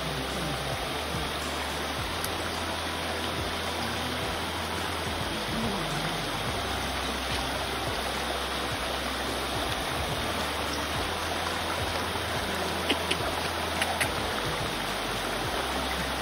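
Shallow rocky stream running steadily over stones. Near the end come a few short, sharp clicks.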